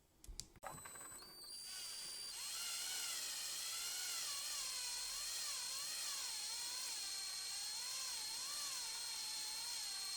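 A few short clicks, then a small electric drill starts about a second in, speeds up and runs on with a steady high whine, its pitch wavering a little under load as it cuts a thread into a screw.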